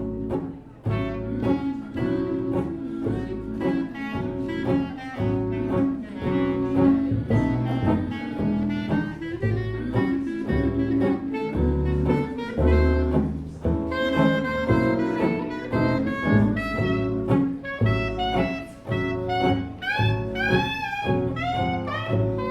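A small band playing jazz live, with bass in the mix.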